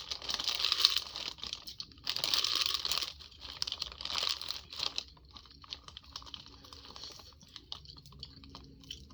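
Close-miked eating of a seafood boil: three loud spells of crackling and crunching in the first four and a half seconds, then quieter clicking and chewing.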